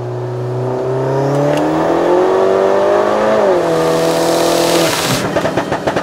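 Car engine accelerating, its pitch rising steadily, then dropping at a gear change about three and a half seconds in and holding level; a rhythmic beat starts near the end.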